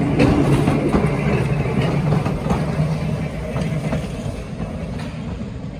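Old riveted steel passenger railcar rolling past on the rails, a low rumble with faint clicks from the wheels; the rumble steadily fades over the last few seconds as the car moves away.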